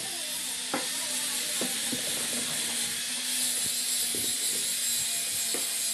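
A steady hiss with a faint hum under it, and a few light scattered clicks and taps as the metal parts of a sewing machine head are handled.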